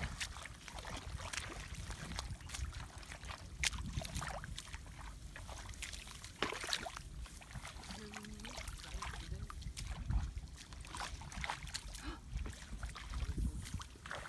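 Irregular splashing and squelching of bare feet and hands in shallow muddy water, over a low rumble of wind on the microphone.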